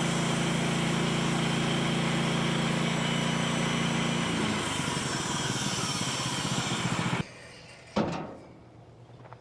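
Small gasoline engine running steadily; its sound changes about four seconds in and stops abruptly a few seconds later, followed by a single sharp knock.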